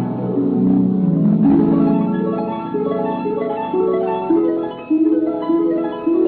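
A music bridge of single plucked, harp-like notes, about two a second, each ringing on into the next. The sound is dull and narrow, as in an old broadcast recording.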